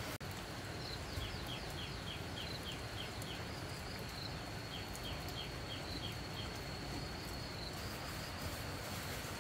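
Insects calling in a steady high drone, with two runs of short falling chirps at about three a second.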